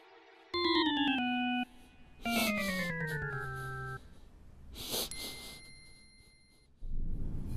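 Film score: two slow falling runs of sustained notes, separated by near-quiet gaps, then a short soft rush of noise and a thin held tone, and fuller music coming back in near the end.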